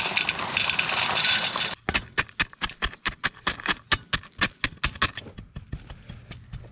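Dry concrete mix pouring out of a bag into a fence-post hole, a loud steady rush that stops about two seconds in. Then rapid, regular sharp knocks follow, about four or five a second, growing fainter after about five seconds.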